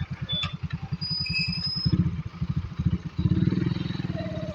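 Diesel engine of a JCB 3DX backhoe loader running with a steady rapid low pulse, getting louder about three seconds in as it takes load or is revved.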